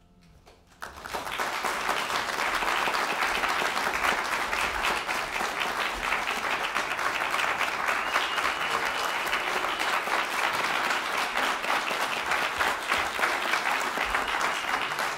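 The last piano chord fades out, and about a second in an audience breaks into applause that carries on steadily.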